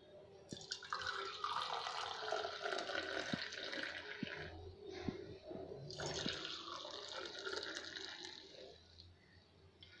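Milky tea poured in a stream from a metal pan into stainless steel mugs, in two long pours with a short pause near the middle, and a few light taps.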